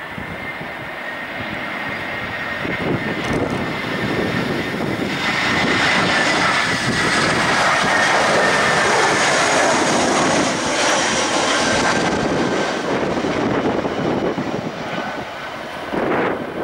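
Airbus A319-112's twin CFM56 turbofan engines at approach power as the airliner passes close by on final: a high fan whine over a rushing noise that swells to its loudest midway. The whine slides down in pitch as the aircraft passes, then the sound eases off.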